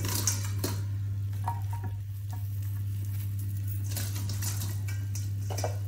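Oiled vegetable wedges being handled in a stainless steel bowl and set into a roasting dish: soft wet clicks and rustles a few times, over a steady low hum.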